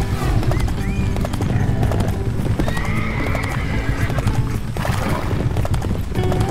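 Galloping hooves of a running herd, a dense continuous drumming, with two high calls that rise and fall, about a second in and around three seconds. Background music plays underneath.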